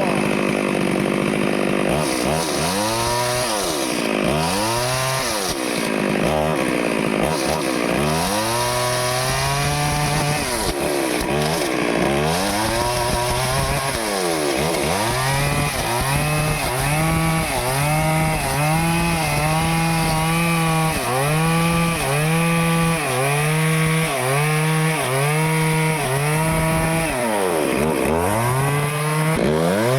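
Stihl chainsaw cutting teak wood, its engine pitch repeatedly rising and dipping as the saw bites in and eases off under load. The rise and dip settle into a steady rhythm of about once a second through the second half.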